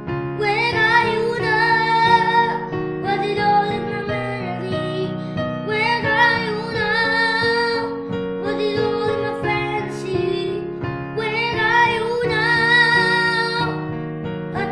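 Grand piano playing a pop ballad melody with a child's high voice singing along in several phrases, each a few seconds long with short breaks between them.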